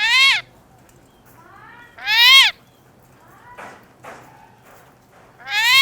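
A pet talking bird calling three times, about two seconds apart. Each call is short, loud and harsh and rises then falls in pitch, with fainter calls in between.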